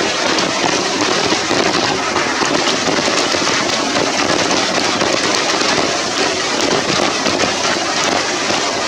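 Steady rain falling: a dense, even hiss of countless drops hitting.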